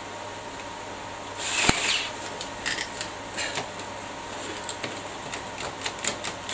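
Handling noises: scattered light clicks and knocks, with one louder scrape about a second and a half in, over a steady faint hum.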